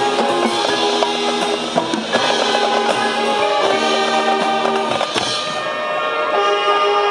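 High school marching band playing: brass and winds holding chords over a drumline of snare and bass drums. About two-thirds of the way through the drum strikes thin out, leaving mostly the held chords.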